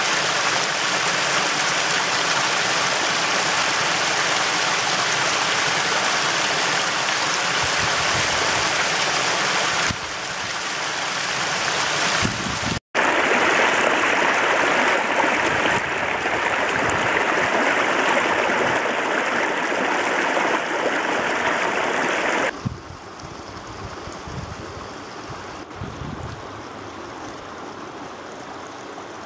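Mountain stream rushing over rocks, a steady wash of water. It cuts out for an instant about thirteen seconds in, and some twenty-two seconds in it drops to a quieter, duller rush.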